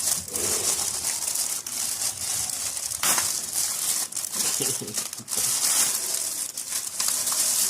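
Plastic parcel packaging being handled, crinkled and torn open by hand, with a steady run of crinkles and small rips.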